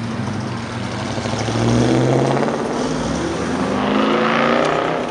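Car engines accelerating past, the engine note rising in two swells, the second and higher one as a car passes close about four seconds in.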